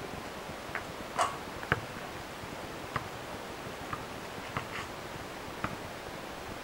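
A basketball bouncing on asphalt: a handful of short, irregularly spaced thuds over a steady background hiss.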